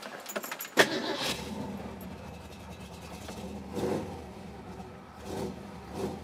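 1967 Ford Mustang V8 cranking and catching about a second in, then running with a steady low rumble, its throttle blipped briefly three times.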